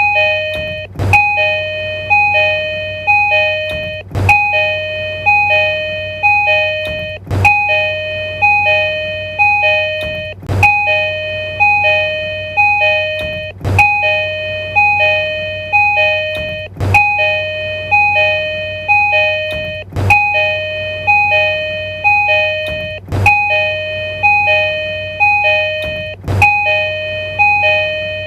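Tokyu Railway train door chime, a two-tone electronic ding-dong sounding over and over in a cycle that restarts about every three seconds.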